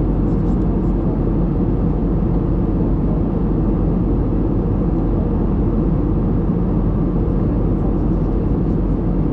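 Steady cabin noise inside an Airbus A320neo in cruise: an even, low rumble of the engines and the air rushing past the fuselage, unchanging throughout.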